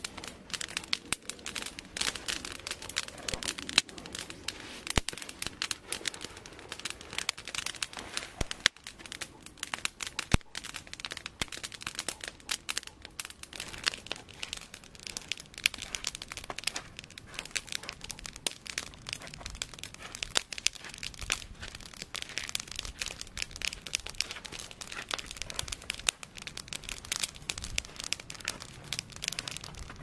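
Campfire of small dry sticks crackling, a dense irregular stream of sharp snaps with a few louder pops.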